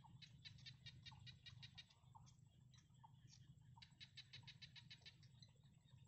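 Heron nestlings giving faint, rapid ticking begging calls in two bursts of about seven ticks a second, one near the start and one a little past the middle.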